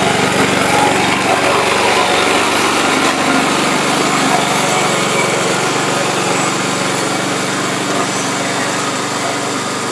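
Petrol engine of a remote-controlled flail mower running steadily under load, with the flail shaft chopping through thick grass.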